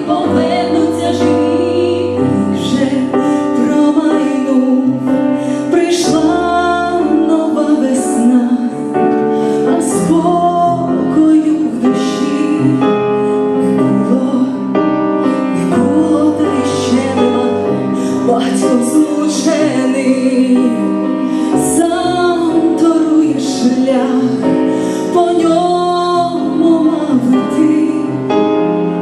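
Two women singing a song in duet over an instrumental backing with bass notes and regular percussion hits.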